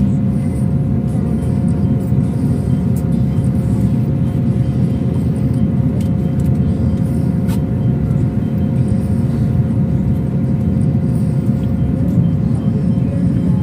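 Steady low rumble of a moving bus heard from inside the cabin, with a constant hum of two steady tones above it.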